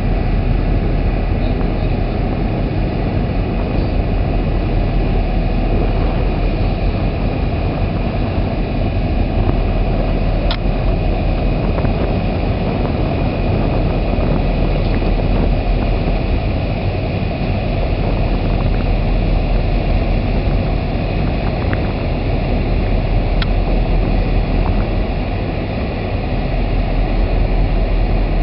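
Ro-ro freight ferry Commodore Clipper's engines running steadily as she comes alongside, a constant deep hum under a dense, even noise, with a couple of faint clicks.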